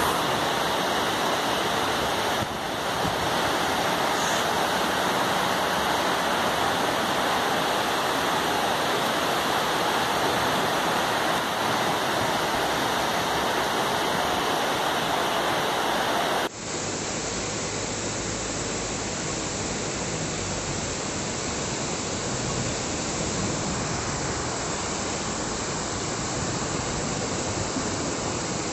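Steady rushing of a fast floodwater torrent pouring down a street, a continuous even roar of water that turns slightly softer and duller about sixteen seconds in.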